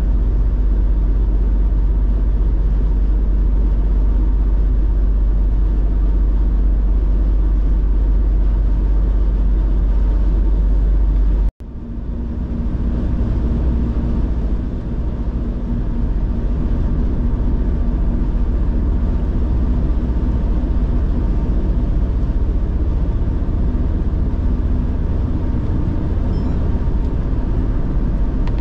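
Car driving on a highway: a steady low rumble of road and engine noise. The sound breaks off for an instant about eleven seconds in, then carries on slightly lower with a faint steady hum added.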